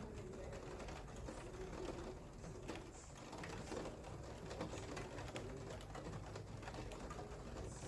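Rain falling, heard as steady light pattering and dripping of many small, irregular ticks, with a dove cooing low in the background now and then.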